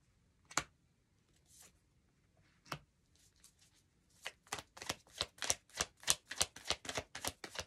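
A deck of oracle cards shuffled by hand, overhand style: two single sharp taps in the first three seconds, then from about four seconds in a fast run of card slaps, about five or six a second.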